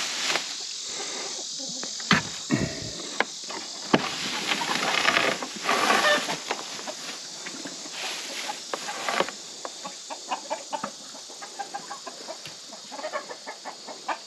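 A wooden plank door is handled and swung open, with several sharp knocks and scrapes, while chickens cluck inside the greenhouse coop.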